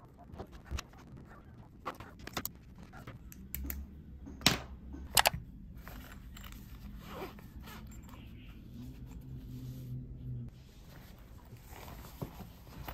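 Hands handling small zippered hard-shell cases on a desk: zipper runs, scrapes and light taps. Two sharp clicks a little before halfway are the loudest.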